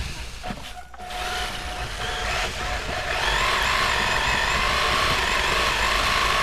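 Radio-controlled car's motor running, heard close up from a camera riding on the car; about three seconds in it picks up to a steady high whine over a hiss and low rumble.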